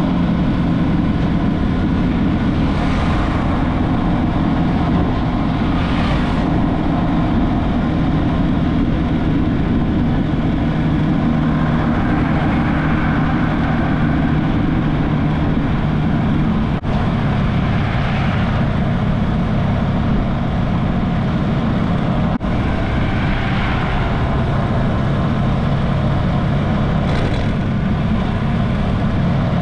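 An engine running steadily with a low hum, with several swells of rushing hiss over it and two very brief dips in the sound.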